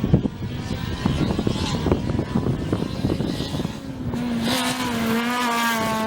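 Rally car engines at high revs. First comes a rough, crackling engine sound full of irregular pops. About four seconds in, an engine note settles in and holds steady.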